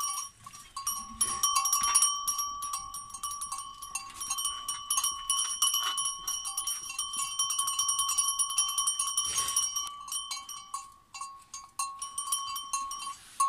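A small metal collar bell on a puppy jangling almost continuously, its clapper clinking over and over so the ring barely dies away. It goes quieter for a moment a couple of seconds before the end.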